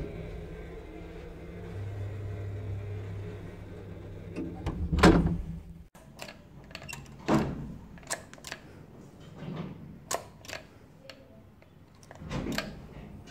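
1930s Keighley traction lift travelling with the car gates shut: a steady low hum as the car runs, then a heavy clunk about five seconds in. After a sudden break come several separate sharp clicks and knocks as the landing call button is pressed.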